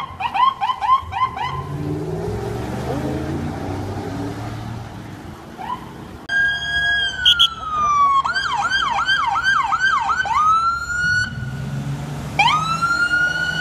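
Police car sirens on responding cruisers. There is a fast yelp at the start; from about six seconds in a steady tone falls in pitch, then breaks into a fast yelp of about two and a half sweeps a second. Near the end a wail rises, all over the rumble of passing traffic.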